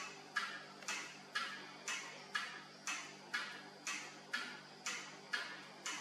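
Steady, even ticking, about two ticks a second, each tick sharp and ringing out briefly before the next, over a faint low hum.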